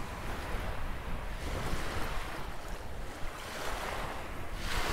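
Small waves washing and lapping on a shallow shore, swelling and fading every second or two, with wind rumbling on the microphone.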